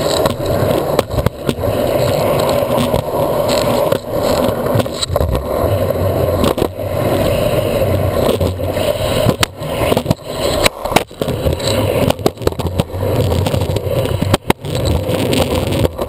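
Skateboard wheels rolling over pavement, heard from a camera mounted under the deck: a loud, steady rumble with sharp clacks and knocks, which come more often in the second half.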